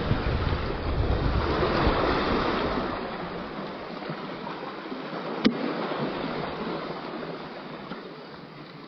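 Small sea waves washing against shoreline rocks, with wind rumbling on the microphone for the first few seconds. A single sharp click comes about five and a half seconds in.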